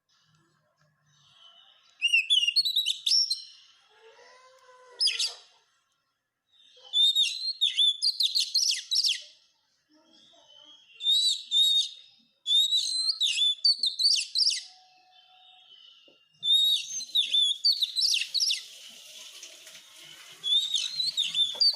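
Oriental magpie-robin (kacer) singing: repeated phrases of fast, high chirps and whistles, each lasting a second or two, with short pauses between.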